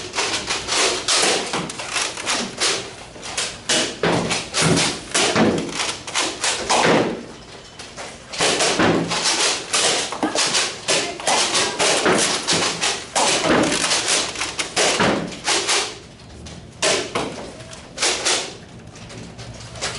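Nerf Rival blasters firing and their foam balls knocking and thudding against walls and the floor in a rapid, irregular barrage, with a couple of brief lulls.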